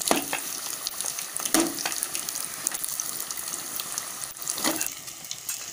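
Batter-coated paneer cubes deep-frying in hot oil in an aluminium kadai, a steady crackling sizzle. A slotted steel spoon knocks against the pan three times, about a second and a half apart.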